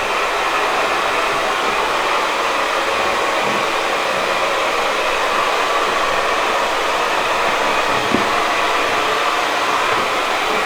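Handheld hair dryer blowing steadily, an even airy noise with no change in speed.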